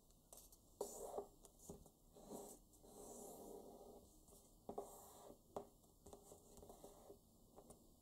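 Faint rustling and scratching of paper being folded and creased by hand, fingers rubbing along the folds, with a few sharp ticks as the paper is pressed and flipped.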